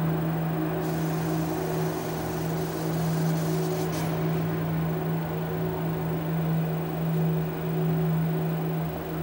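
Electronic drone: a steady low hum with a fainter tone above it, over a bed of noise. A layer of high hiss comes in about a second in and cuts off with a sharp click about four seconds in.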